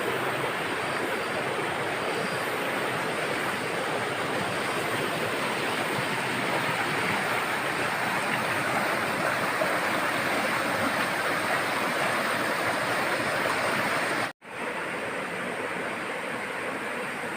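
River water in its upper reaches flowing, a steady rush of water. It cuts out for an instant about fourteen seconds in, then carries on slightly quieter.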